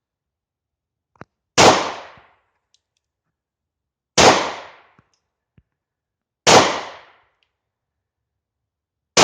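German P.08 Luger 9mm pistol firing in slow, aimed fire: four single shots about two and a half seconds apart, each with a short fading echo, the last right at the end.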